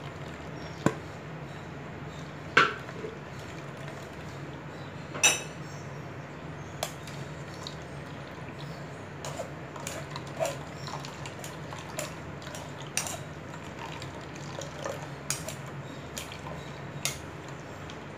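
Blended juice being strained through a metal mesh sieve into a bowl: scattered sharp clinks and taps of metal on the sieve and bowl, the loudest three in the first few seconds, with juice trickling into the bowl.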